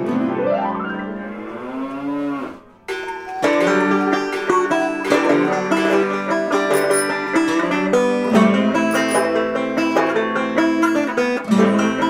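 Background music. It opens with a swooping, bending tone, and about three seconds in, fast plucked-string music with many quick notes begins.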